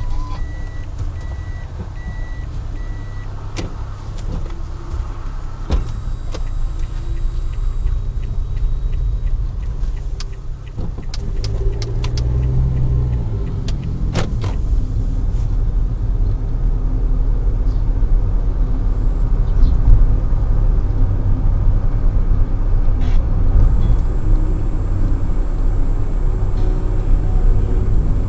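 Daihatsu Tanto kei car driving, heard inside the cabin through a dashboard camera: a steady low engine and road rumble that grows louder over the stretch, with scattered sharp clicks and knocks in the middle.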